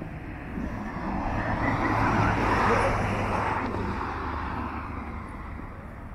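A car driving past on the road, its tyre and engine noise swelling and then fading away over a few seconds.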